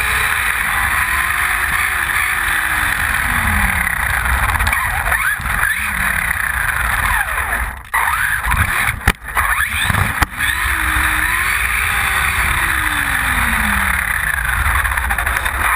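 Electric motor and gears of a Losi Mini-T RC truck whining, the pitch rising and falling as it speeds up and slows down, over a constant rumble of the small tyres on asphalt, heard from a camera riding on the truck. The sound drops out sharply a few times around the middle.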